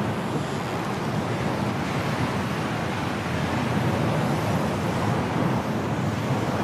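Strong wind blowing steadily in a snowstorm, a continuous rushing noise with no distinct calls or impacts.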